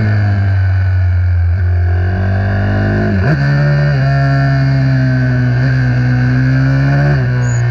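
Small four-stroke single-cylinder racing minibike engine running hard at high revs, its pitch drifting slowly up and down. The note breaks and shifts briefly about three seconds in and again near the end.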